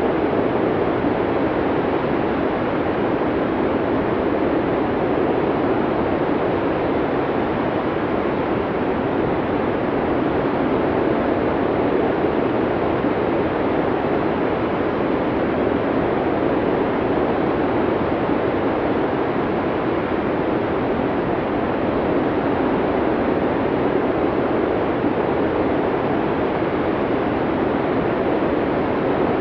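Snowstorm wind blowing as a steady, even rushing noise, without gusts or breaks.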